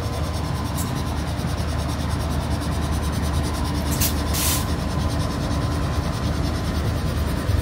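Two NR-class diesel-electric locomotives passing, their engines giving a steady low rumble with a constant hum over it. Two short hisses come about four seconds in.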